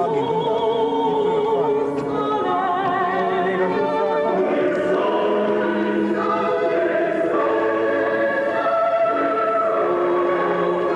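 Classical choral music: several voices singing long, wavering notes together.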